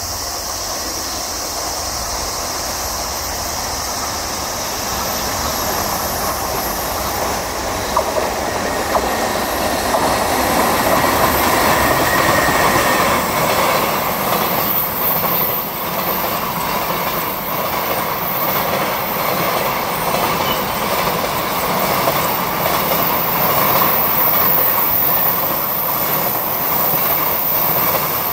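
A container freight train hauled by an EH500 AC/DC electric locomotive passing, a steady rumble of wagon wheels on the rails that grows louder about ten seconds in, with clicks as the wheels cross the rail joints.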